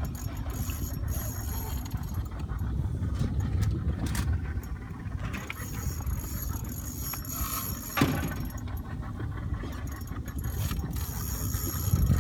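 Spinning reel's drag buzzing on and off as a hooked shark takes line against it, over a steady low rumble. A single sharp knock about eight seconds in.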